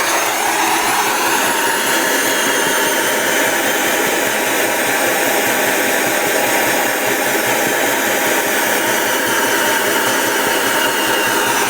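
Vacuum-cleaner motor running at high speed with a steady whine. It is fed from a variac through a relay switching at 5 Hz with 14% pulse length, yet it runs evenly.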